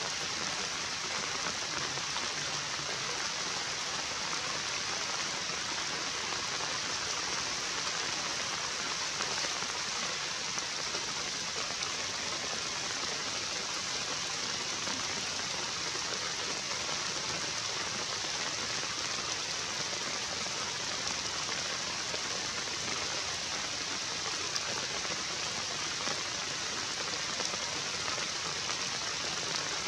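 Steady rain: an even, unbroken hiss of falling drops with no pauses or changes.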